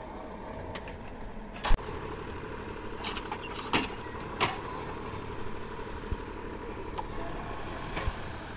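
Engine of a clay-brick making machine running steadily, with a few sharp knocks and clanks now and then. The loudest knock comes just under two seconds in.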